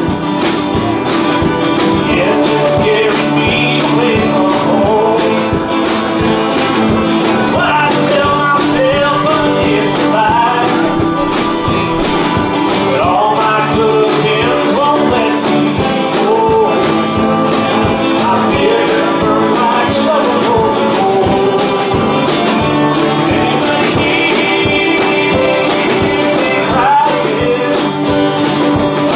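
A live band plays a country-rock song: an acoustic guitar is strummed over a steady drum beat, with harmonica and a male singing voice.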